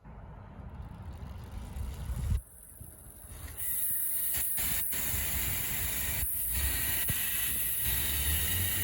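Bicycle rear wheel spun freely off the ground, its freewheel hub ratcheting in a steady high-pitched buzz that starts about three and a half seconds in; pretty loud. Lower handling noise comes before it.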